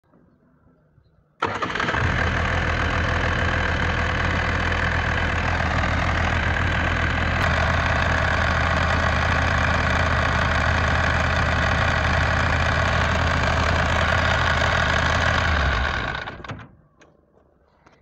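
16 kVA diesel generator engine running steadily, cutting in sharply about a second and a half in. Near the end it is shut off and runs down to a stop within about a second.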